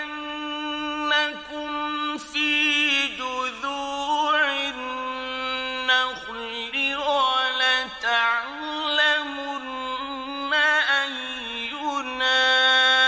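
Male Quran reciter chanting in the melodic mujawwad style: long, ornamented held notes that bend and waver in pitch, in several phrases with short breaths between them. The last phrase is a long steady note.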